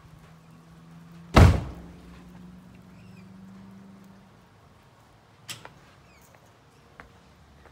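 A single loud thump about a second and a half in, then two much fainter clicks later on, over a faint steady low hum that stops about halfway through.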